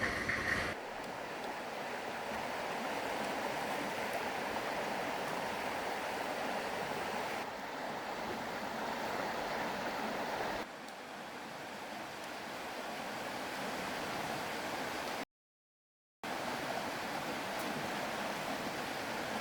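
Rushing water of a river in flood, a steady wash of flow noise heard over several cut-together shots, with a sudden second of silence about three-quarters of the way through.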